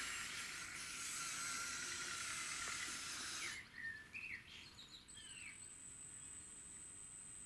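Radio-controlled scale excavator's brushless track drive and motors running with a high whirring hiss, cutting off abruptly about halfway through. Then birds chirping over a thin steady high tone.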